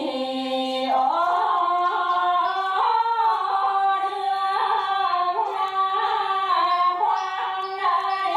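Two women singing a Bắc Ninh quan họ folk song together, in long held notes decorated with wavering ornaments; the melody steps up from a low held note about a second in.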